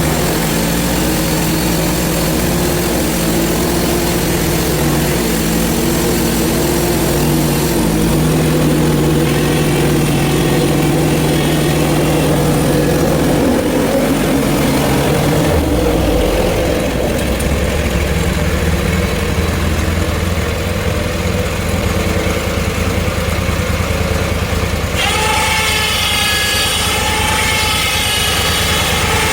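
Gas engine of a portable bandsaw sawmill running steadily through a cut in hard maple; its note shifts about halfway through, and a higher whine comes in suddenly near the end.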